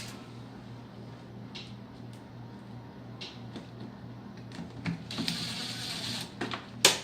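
Impact driver running briefly, for about a second, driving in a door-panel screw, amid scattered clicks and knocks of handling. A sharp click near the end is the loudest sound.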